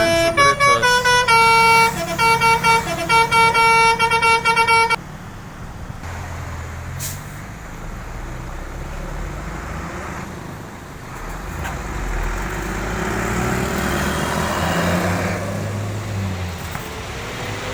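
Bus telolet horn, a multi-tone Basuri air horn, playing a quick melody of stepped notes for about five seconds, then cutting off abruptly. Engine and road noise of passing traffic follows and swells toward the end.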